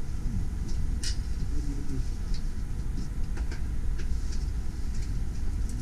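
Inside a slowly moving passenger train carriage: a steady low rumble of the train running on the track, with scattered sharp clicks and creaks from the wheels and carriage.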